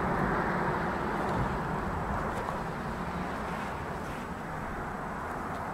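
Steady outdoor rushing noise that eases off slightly, with a few faint ticks.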